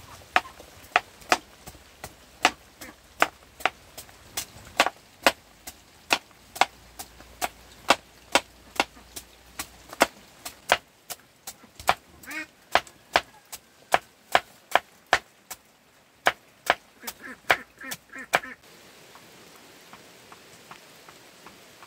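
Steady chopping with a knife on a board, sharp strokes at about two to three a second, stopping about 18 seconds in.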